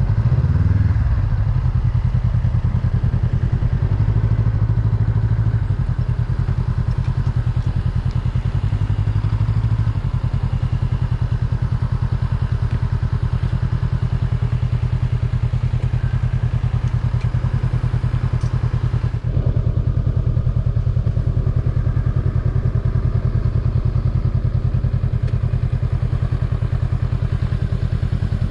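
Honda Rebel 500's parallel-twin engine running steadily under way, with a brief break in the sound about two-thirds of the way in.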